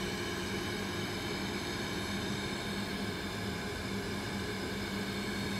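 Automatic 3-ply flat mask machine running, with mask bodies carried by conveyor belt to its ear-loop welding stations: a steady mechanical hum with several steady tones that holds level throughout.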